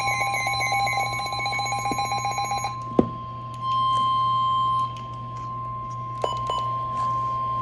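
NOAA Weather Radio emergency alert: the tail of the buzzing SAME digital header burst, then the steady single-pitch 1050 Hz warning alarm tone beginning about two and a half seconds in, with a sharp click at about three seconds. The tone announces a severe thunderstorm warning.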